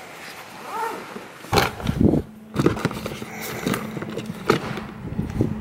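Cameras and lenses knocking together and against a plastic bin as a hand rummages through them: irregular clicks and clunks, with a cluster of heavier thumps about one and a half seconds in.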